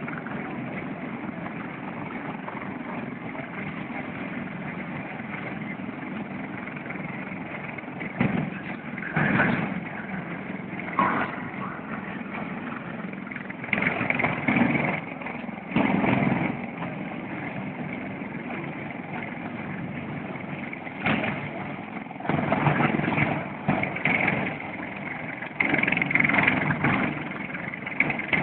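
Steady engine noise, with brief louder swells at irregular intervals of a few seconds.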